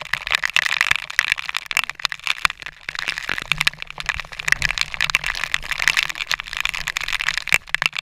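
Dense, irregular crackling of rain and waterfall spray striking a GoPro's waterproof housing, over a steady rushing hiss of falling water.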